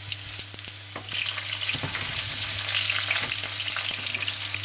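Boiled potatoes frying in hot olive oil with garlic cloves in a non-stick pan: a steady sizzle, with short knocks and scrapes as potatoes go into the pan and a silicone spatula turns them, over a steady low hum.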